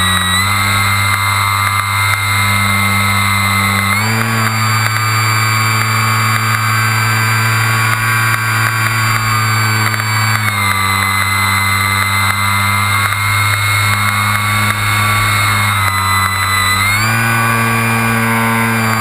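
RC model airplane's motor and propeller running in flight, heard from on the airframe. Its pitch steps up about four seconds in, drops back about six seconds later, rises again near the end and then falls away: throttle changes.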